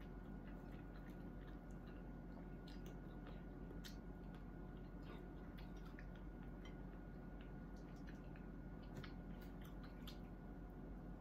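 A person eating by hand: faint chewing with scattered small, irregular mouth and finger clicks, over a steady low hum.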